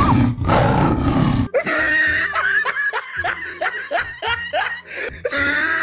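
Loud dramatic music cuts off suddenly about one and a half seconds in. Laughter follows: a quick run of short 'ha-ha' bursts, about four a second.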